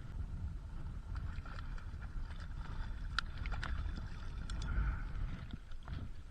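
Wind rumbling on the microphone over the sound of sea water lapping, with scattered light clicks and ticks.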